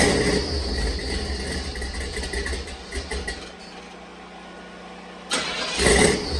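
Hot rod's engine running on a cold start. It drops away to a much quieter steady hum about three and a half seconds in, then comes back loud abruptly near the end, like a restart.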